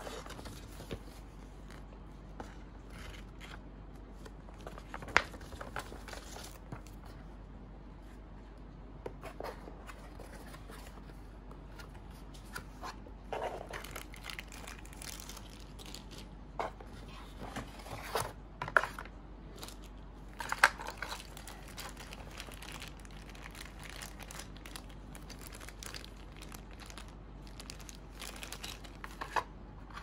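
Paper and cardboard packaging rustling and crinkling as a boxed mechanical keyboard is unpacked by hand, with scattered light taps and a few sharper clicks standing out.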